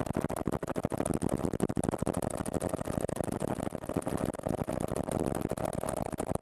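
Helicopter in flight: a rapid, even rotor chop with a steady whine.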